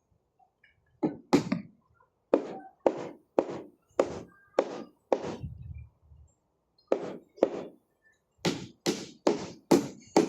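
Repeated hammer blows, about two a second in runs, with short pauses between the runs.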